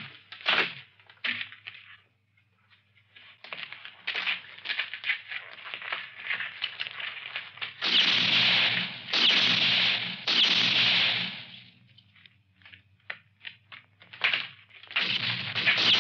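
Dubbed gunfight sound effects: a long run of rapid small clicks and crackles, then three loud gunshots with long ringing tails about a second apart, and more gunshots near the end.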